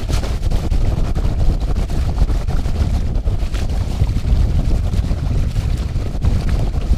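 Wind buffeting the microphone in a steady low rumble on the deck of a schooner under sail in a westerly breeze, with the wash of the sea underneath.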